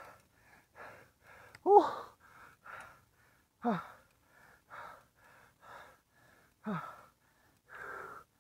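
A cyclist panting hard from the effort of pedalling up a steep climb: quick breaths about twice a second, broken three times by a louder voiced gasp that falls in pitch.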